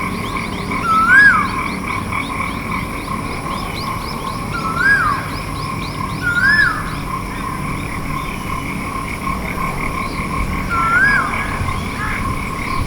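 Pacific koel calling: four separate clear calls, each rising then falling in pitch, spaced a few seconds apart, over a steady dense chorus of calling animals.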